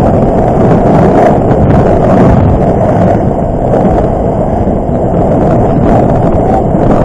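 Steady wind rush on a helmet-mounted microphone while being towed at speed on a plastic sled, mixed with the sled's hull sliding over snow and ice.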